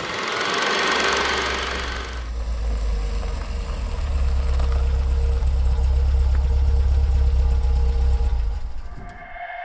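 A vehicle engine running with a steady low rumble. It opens with about two seconds of a broad hiss.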